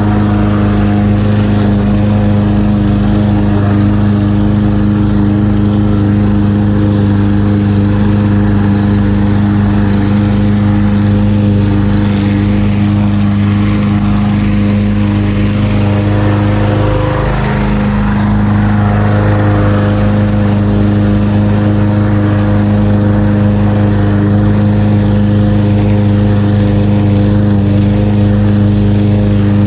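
Walk-behind lawn mower engine running steadily while cutting grass, with a brief dip in pitch a little past halfway.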